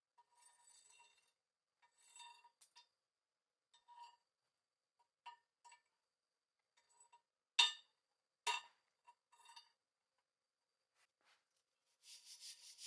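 Scattered light metallic clinks and taps on steel, with two sharper strikes about two-thirds of the way through. Near the end a fast rhythmic scraping starts, about four or five strokes a second.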